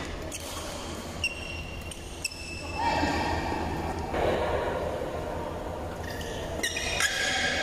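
Badminton rally: sharp racket strikes on the shuttlecock, about a second apart, then more hits near the end.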